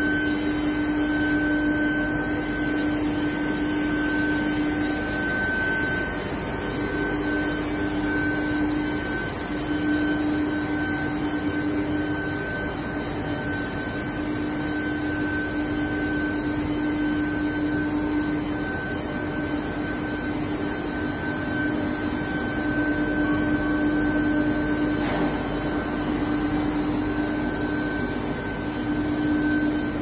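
Induction quenching and tempering line for rolled steel bars running: a steady electrical hum with higher whining tones over a constant rushing machine noise.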